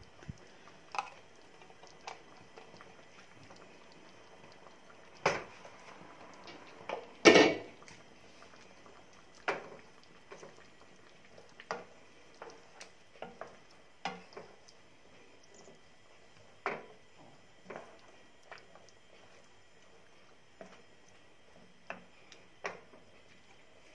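A wooden spoon knocking and scraping against a frying pan as chicken pieces are stirred in sauce: scattered short clicks and knocks, with two louder ones about five and seven seconds in.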